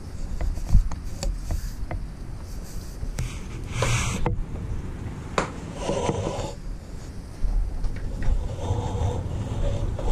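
Small clicks and rubbing of gloved hands handling wiring in a car's engine bay, with a few breaths close to the microphone.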